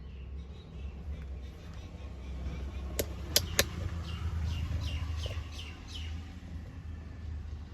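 Three sharp clicks about three seconds in, followed by a bird calling in a quick run of short descending chirps, over a steady low rumble.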